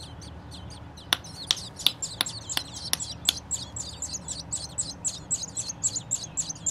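Nestling songbirds begging for food: rapid, high, thin peeping several times a second, with a run of sharper, louder chips from about one to three seconds in.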